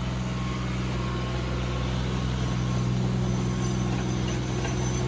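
Diesel tractor engines running steadily with a low, even drone. The tractors are a John Deere 5050 D and a blue tractor, chained together for a tractor tug-of-war.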